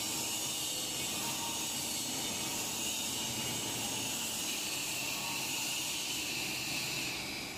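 Tube ice machine running under test, its Bitzer 4HE-18Y semi-hermetic piston compressor running with a steady high hiss over the machine noise. It gets a little quieter near the end.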